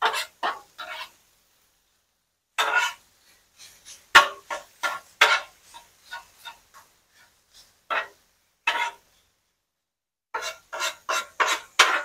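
Metal spatula scraping across the steel top of a Blackstone griddle in short strokes, with a sharp metal clank about four seconds in and a quick run of scrapes near the end.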